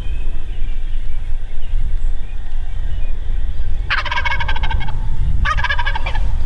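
Wild turkey gobbling twice in quick succession, starting about four seconds in, each gobble a rapid rattling call of about a second. A steady low rumble runs underneath.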